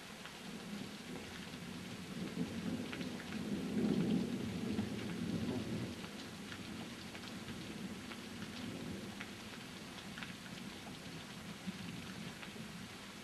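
A roll of thunder over steady rain: the rumble swells to its loudest about four seconds in and dies away over the next several seconds, while rain hisses and raindrops tick throughout.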